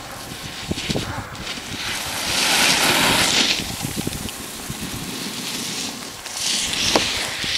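Wind buffeting the microphone, with a loud hiss swelling about three seconds in and a smaller one near the end: snowboard edges carving through groomed snow.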